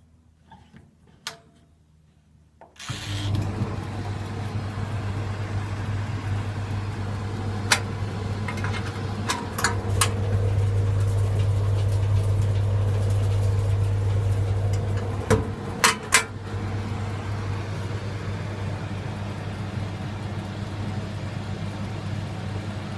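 English Electric Tumble Heat clothes dryer, quiet apart from a few faint clicks, then switched on about three seconds in: its motor and drum start at once and run with a steady hum over a tumbling rumble. A few sharp clicks sound a little over halfway through.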